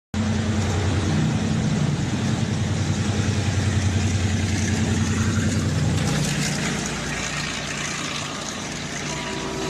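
Diesel locomotive engine running as the train approaches, a steady low drone that changes tone about six seconds in.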